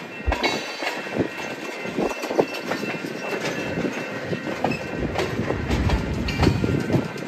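Freight train's tank cars and covered hoppers rolling past, their wheels clacking and knocking irregularly over the rail joints, with a steady rumble. Thin, high wheel squeals come and go over the clatter.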